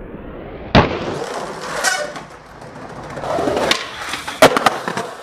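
Skateboard on concrete: wheels rolling, then a sharp, loud clack of the board under a second in, followed by clatter and a run of knocks, the loudest near the end.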